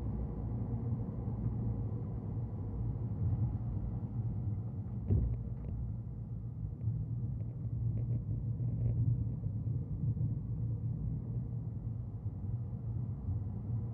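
Car driving on a road, a steady low rumble of engine and tyre noise, with one knock about five seconds in and a few faint clicks after it.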